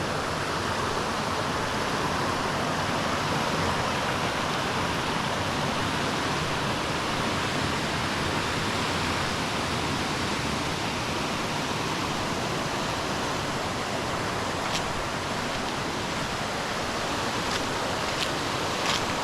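Waterfall cascades rushing steadily, with a few small clicks near the end.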